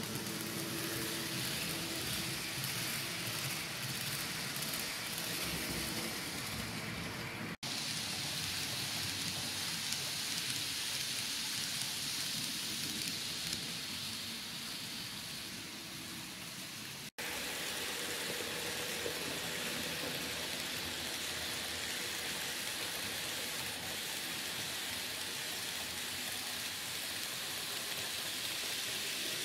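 N-scale model trains running on the track: a steady hiss of metal wheels rolling on the rails, with a faint motor hum. The sound cuts out for an instant twice, about a quarter and about three-fifths of the way through.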